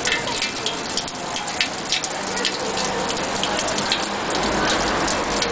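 Thin stream of water from a wall-fountain spout falling into a stone basin: a steady splashing with many small drips.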